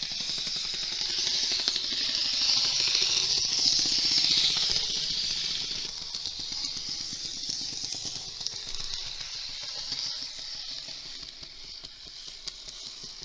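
Bachmann N-gauge model streetcar running with a high hiss and a fine, rapid rattle, an abnormal noise from the model even though it runs smoothly. The noise swells a couple of seconds in, then slowly fades.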